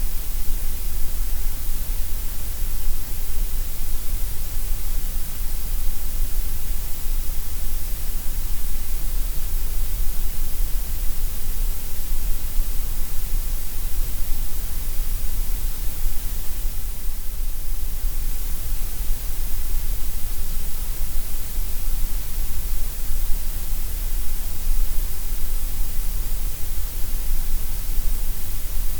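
Steady white noise: an even, unbroken hiss spread across all pitches, with no rhythm or changes.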